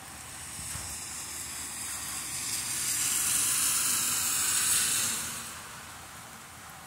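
Heavy rain falling on grass and pavement, a steady hiss that swells to its loudest about halfway through and eases before the end.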